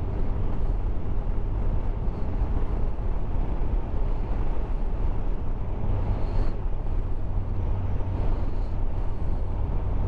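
Motorcycle riding at steady road speed, heard from on the bike: the engine running evenly under a constant rush of wind and tyre noise, with no change in revs.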